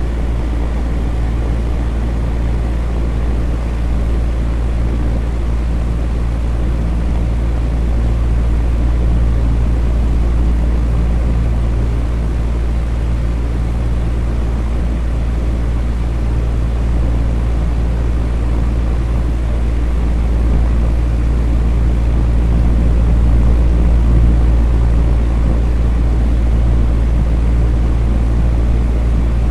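Electric fan running steadily: a low motor hum under an even rush of moving air.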